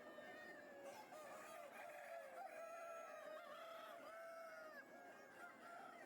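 A flock of chickens calling over one another, with roosters crowing; many overlapping drawn-out calls, faint.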